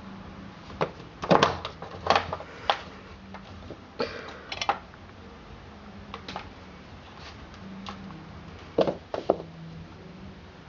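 Empty plastic drink bottles knocking and clattering on a laminate floor as a kitten bats and pushes them, in irregular clusters of sharp knocks with a brief rustle about four seconds in.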